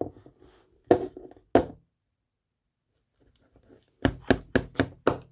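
Hard knocks and taps of objects handled against a hard surface: a few in the first two seconds, then a quick run of about six knocks near the end.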